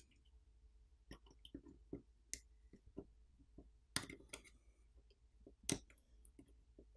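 Faint, scattered small clicks and taps of a metal tool working the smartphone's coaxial antenna cable connectors as they are popped off. The sharpest clicks come about four seconds in and just before six seconds.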